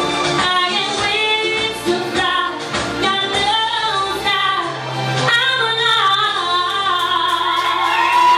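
A female vocalist singing a pop song with musical accompaniment.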